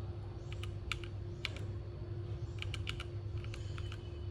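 Keys of a compact mechanical gaming keyboard being pressed in irregular clicks, some in quick runs, over a steady low hum.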